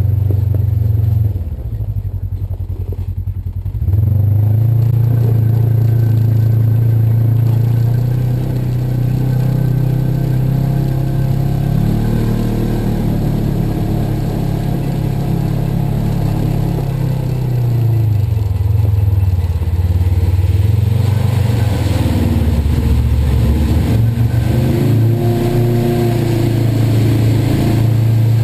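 Polaris RZR side-by-side's engine running under way. Its note drops lower and quieter for a couple of seconds near the start, then picks up again and rises and falls with the throttle.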